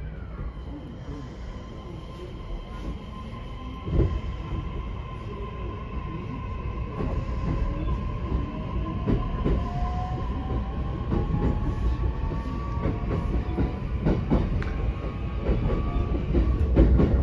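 Running sound heard inside an E131-500 series electric train car as it gathers speed: the inverter-driven traction motors whine, one tone settling and held while a second tone rises slowly, over a deep rumble that grows louder. Wheels click over rail joints, more and more often toward the end.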